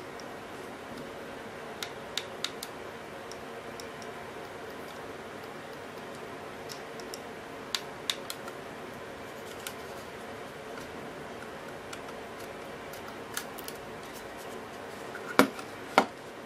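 Logitech Pop Mouse being handled: scattered single clicks from its buttons and scroll wheel over a steady background hum, with two louder clicks about a second apart near the end.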